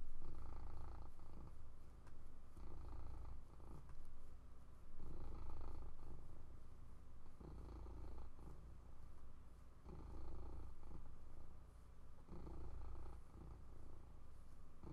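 Domestic cat purring, a low rumble that swells and eases in regular cycles about every two and a half seconds.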